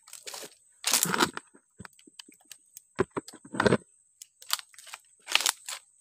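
Irregular crunches and snaps of dry twigs and leaf litter on the mangrove floor being trodden on and pushed aside, about ten sharp noises of varying loudness, over a thin steady high tone.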